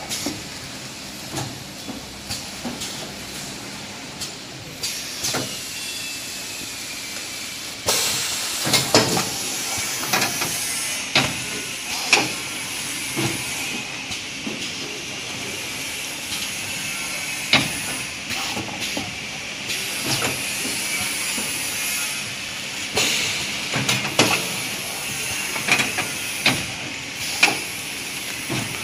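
Semi-automatic kitchen towel bundle packing machine running: sharp clacks from its pushers at irregular intervals over a steady hiss that grows louder about eight seconds in.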